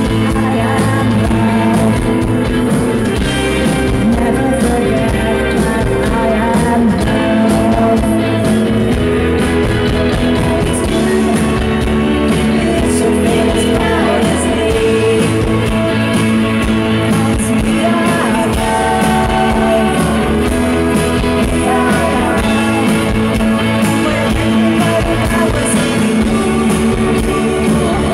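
Indie rock band playing live: electric guitars, bass guitar and drums, with a woman singing lead.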